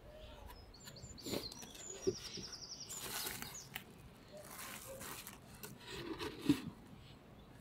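Polystyrene roof of a mini-plus beehive lifted off and set back on: foam scraping and rubbing with a few light knocks, the loudest a thump about six and a half seconds in as the roof goes back down. A small bird sings a quick high trill about two seconds in.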